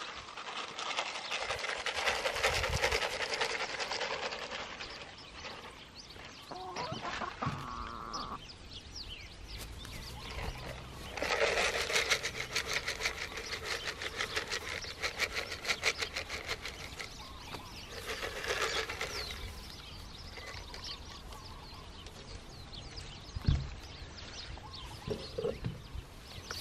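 Hens foraging in grass close by: soft clucking calls with busy pecking, scratching and rustling of the grass. There is one sharp knock near the end.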